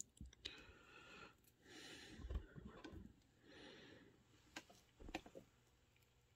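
Faint handling of a small RC crawler chassis: soft breaths near the microphone, then a few light clicks of parts being handled about two-thirds of the way through.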